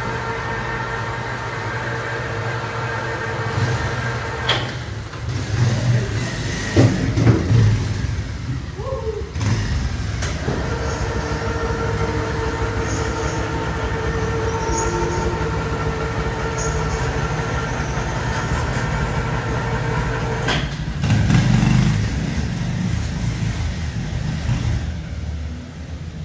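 Electric winch hoist of a motorcycle lift platform running with a steady whine over a low rumble, broken by cuts about 4, 9 and 20 seconds in; a motorcycle engine runs on the platform, louder for a few seconds twice.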